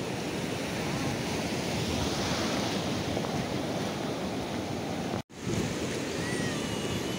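Sea surf breaking and washing over a shallow rocky shore, mixed with wind buffeting the phone's microphone, as a steady rushing noise. The sound drops out abruptly for an instant about five seconds in.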